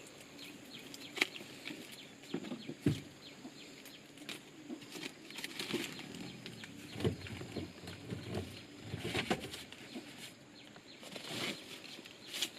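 Chickens clucking, with scattered rustling and light knocks.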